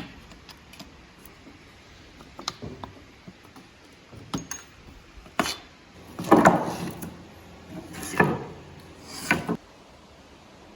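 Scattered small clicks, then three louder clattering knocks about a second or two apart, like parts being handled and set down on a workbench.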